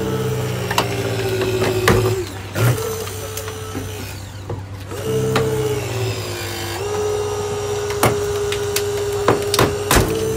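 TNT Rescue STORM 2 battery-powered hydraulic rescue tool running in spurts, its electric pump whining steadily. It stops twice briefly, then runs on from about halfway, its pitch sagging for a moment under load. Several sharp cracks and snaps sound as the vehicle's body gives way to the tool.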